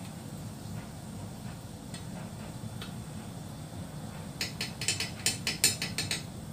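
Long cooking chopsticks clicking together in a quick run of about ten sharp clacks, two-thirds of the way in, over a steady low hum.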